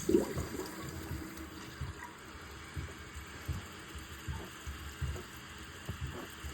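Toilet cistern refilling: water rushing in through the fill valve as a steady hiss, starting suddenly right at the beginning, with irregular low knocks and gurgles underneath.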